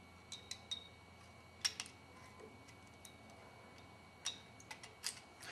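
Faint, scattered small clicks and taps of stacked circuit boards (an Arduino Uno with its motor and sensor shields) being handled and pressed together by hand, with the sharpest clicks about a second and a half in and again past the four-second mark.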